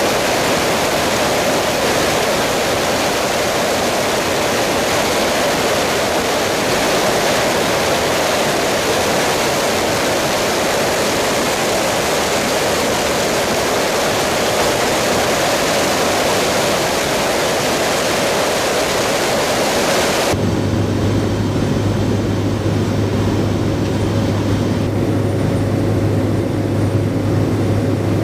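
Steady, loud rushing noise of an aircraft in flight. About two-thirds of the way through it cuts abruptly to a lower, droning engine sound with a steady hum.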